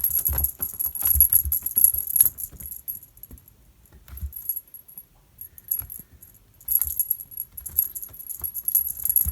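Cat toy jangling in bursts as a cat grabs and bats at it, with a quieter lull of a few seconds in the middle.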